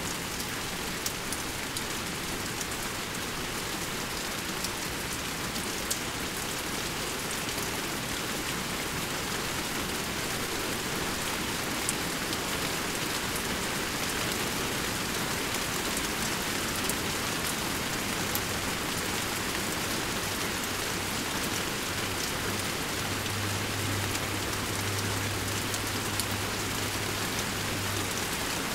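Steady rainfall, with scattered individual drops ticking through the even hiss of the rain.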